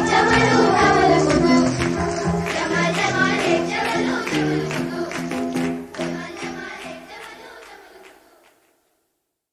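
Background music with singing, fading out over the last few seconds.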